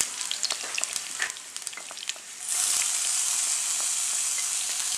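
Chillies frying in hot coconut oil in a pan, crackling with scattered pops, then, about halfway through, a sudden loud steady sizzle as ginger-garlic paste drops into the hot oil.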